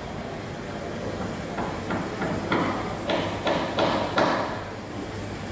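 A run of about nine sharp knocks, like hammering, growing louder over about three seconds and then stopping, over a steady low machine hum.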